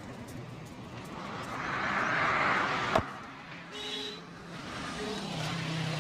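Street traffic: a passing vehicle swells up and fades, a single sharp crack sounds about halfway through, and a low engine hum sets in near the end.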